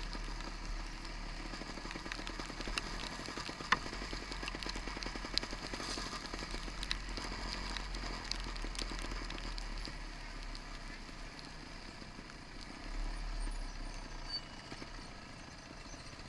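Trials motorcycle engine running at low revs, heard from a camera mounted on the bike, with many scattered sharp clicks and crackles.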